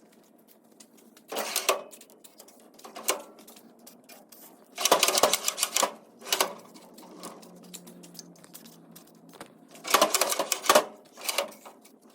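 Steel Craftsman tool chest drawers being worked loose and pulled out, metal rattling and clattering on the drawer slides in several short bursts, the longest about five seconds in and another about ten seconds in.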